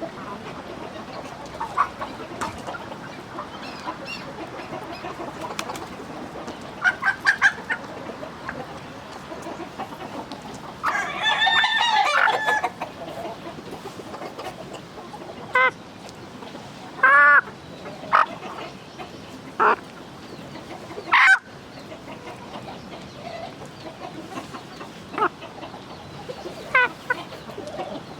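Free-ranging chickens clucking in short calls scattered throughout, with a rooster crowing once, a long call of nearly two seconds, near the middle.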